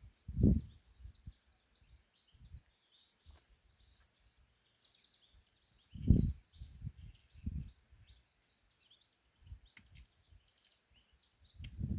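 Small birds chirping continuously in the background, with a few short, low, muffled thumps, the loudest about half a second in and around six seconds in.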